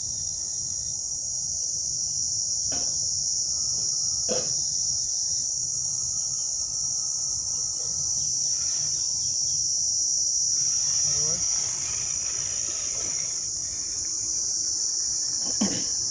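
A steady, high-pitched chorus of insects buzzing, with a few faint clicks in the middle and near the end.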